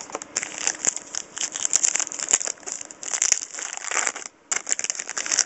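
Crinkling of a foil trading card pack wrapper as it is torn open and handled, a dense crackle of small clicks with a brief pause about four seconds in.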